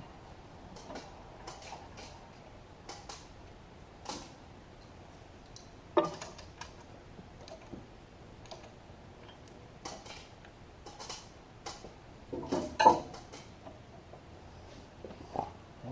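Scattered light metallic clicks and clinks of tools and parts being handled on an engine. A sharper knock comes about six seconds in, and a louder cluster of knocks a few seconds before the end.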